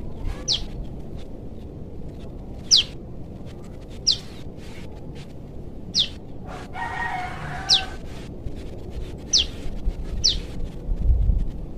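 A young prenjak lumut gives short, high-pitched calls that fall in pitch, seven in all, one every second or two: a juvenile calling for its parent. A rooster crows faintly for about a second in the middle.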